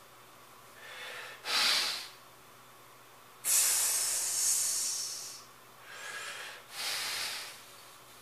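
A bodybuilder's forceful, hissing breaths while straining to hold flexed poses: three loud breaths, the middle one about two seconds long, and the first and last each coming just after a shorter, quieter breath.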